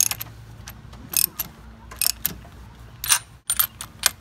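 Hand socket ratchet clicking in short bursts, about one stroke a second, as it turns a spark plug back into the cylinder head of a two-stroke Mercury outboard.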